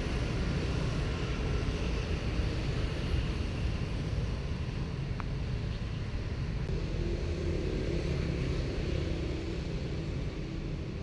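Steady low rumble of road traffic, with a faint steady hum in the second half.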